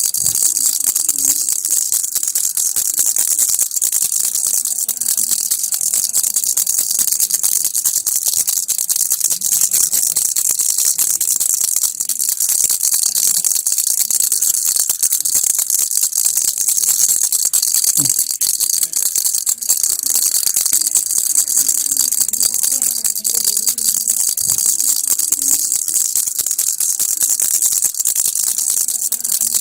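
Baby rattle (kilukki) shaken steadily and rapidly without a break: a dense, bright, even rattling.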